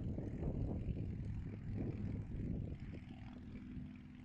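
Wind buffeting the microphone: an uneven low rumble that eases off about three seconds in, leaving a faint steady low hum.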